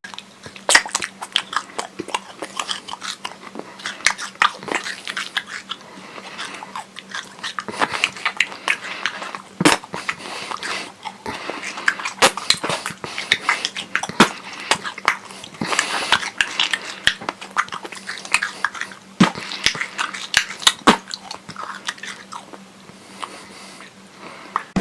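A carrot being bitten and chewed with wet, sloppy mouth sounds, made as a comic sound effect of a reindeer eating. There are irregular sharp crunches throughout, over a faint steady hum.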